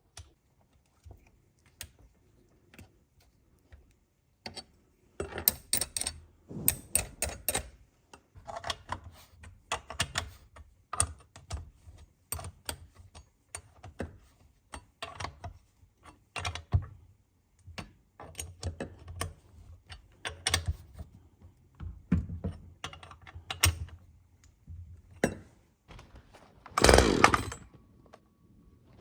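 Irregular clinks, clicks and knocks of metal parts and tools being handled as a Husqvarna 562 XP chainsaw is put back together, with a brief louder rasping burst about two seconds before the end.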